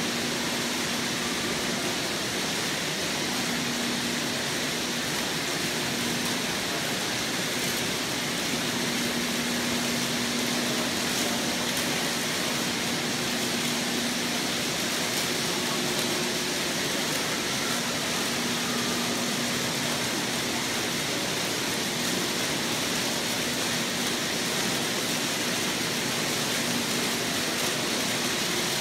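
Metropolis II kinetic sculpture running: many toy cars rolling along its metal tracks and conveyor lifts make a steady rushing noise, with a low motor hum that comes and goes.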